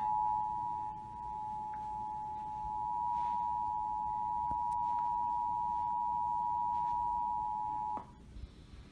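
Emergency Alert System two-tone attention signal: two steady pitched tones sounded together, held for about eight seconds and then cut off. It is the warning that an emergency alert broadcast follows.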